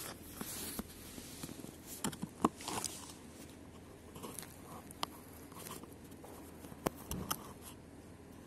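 Domestic cat eating from a paper bucket: irregular crunching and chewing clicks, a quick cluster about two seconds in and a few scattered ones later.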